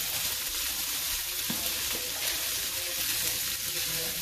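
Diced onion sizzling in canola oil in a steel wok: a steady frying hiss.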